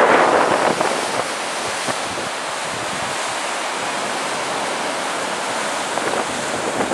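Sea surf breaking and washing over shoreline rocks, a steady rushing hiss, with wind buffeting the microphone that eases about a second in.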